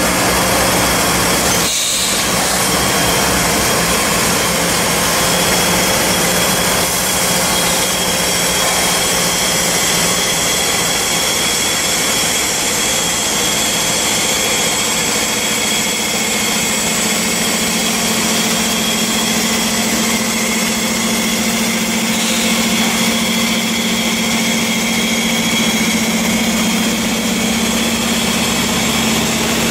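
Norfolk Southern diesel-electric locomotives running at low throttle close by: a steady engine drone with a high whine over it, the engine note rising slightly about halfway through.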